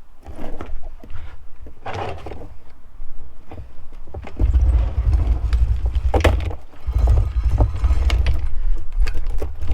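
Metal motorcycle drive chain clinking and rattling as it is pulled by hand around the rear sprocket, with sharp clicks among the links. From about four seconds in there is also a heavy low rumble.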